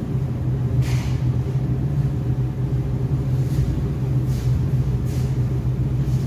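A steady low rumble runs throughout, with a few faint taps scattered through it.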